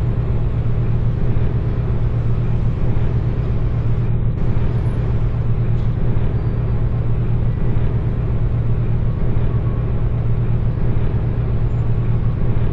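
A steady, loud, low mechanical drone with a constant deep hum.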